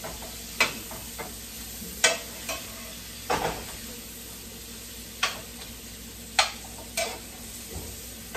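Onions and sweet peppers sizzling in butter in a skillet while being stirred with a spoon, the spoon knocking sharply against the pan every second or so.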